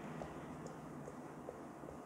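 Faint small ticks and squeaks, about one every half second, as hands bend and stretch a Kalibre silicone drinking straw, over a low steady room hum.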